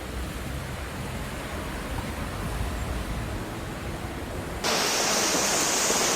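Steady rush of floodwater with a low rumble underneath; about four and a half seconds in it cuts suddenly to a louder, hissier rush.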